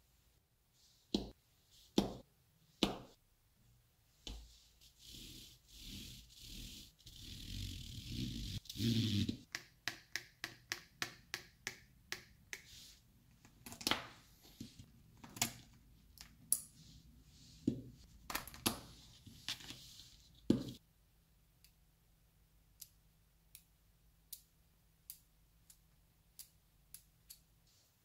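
Small neodymium magnetic balls clicking sharply as they snap together against one another. A stretch of scraping and rattling comes about four to nine seconds in, followed by a quick run of clicks. Fainter, sparser clicks come near the end.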